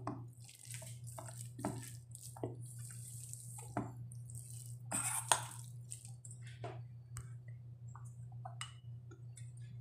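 Metal spoon stirring cornstarch-coated beef slices in a stainless steel bowl: irregular wet squishes and light clicks of the spoon against the bowl, over a steady low hum.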